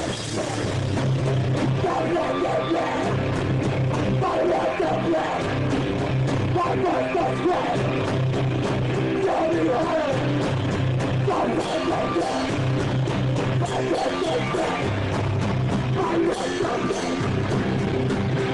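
Live rock band playing loud: electric guitar, bass guitar and a drum kit with crashing cymbals, over a repeating low bass riff.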